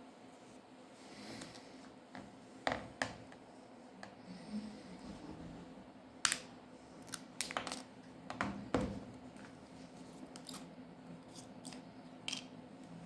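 Small hand tools clicking and tapping against the plastic and metal parts of an opened smartphone, in scattered sharp clicks, a few of them in quick clusters, over a faint steady hum.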